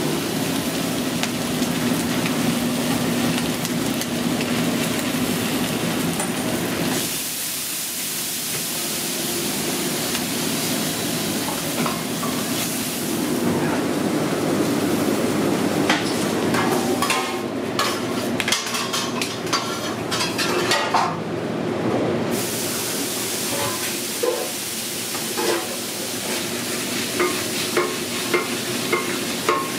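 Chopped steak sizzling on a flat-top griddle for the first several seconds. After that come kitchen clatter and the rustle of deli paper and foil as the sandwich is wrapped.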